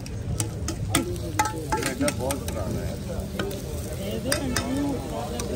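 Saag paratha frying on a hot flat griddle, sizzling, with frequent sharp clinks and taps of metal utensils.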